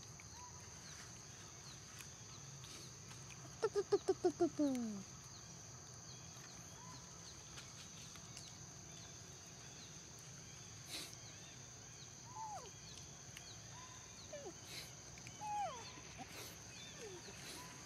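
Steady high-pitched insect drone, with a quick series of about seven calls falling in pitch about four seconds in. A few faint short chirps follow later on.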